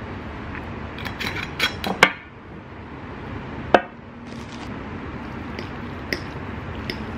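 Tableware handled on a tabletop. A quick run of clicks and knocks, then one louder knock a little before halfway. After that, a few light clinks of a metal fork and spoon against a ceramic plate as spaghetti is twisted.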